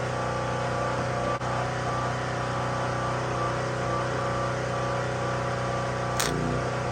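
Portable generator engine running steadily at a constant speed, a continuous hum. A single short knock about six seconds in.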